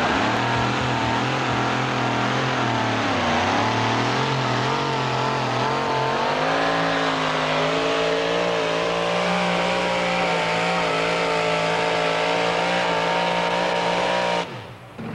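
Engine of a modified two-wheel-drive Chevy pulling truck running flat out as it drags a weight-transfer sled. The engine note sags under the load about three seconds in, then climbs back and holds high and steady, before cutting off suddenly near the end.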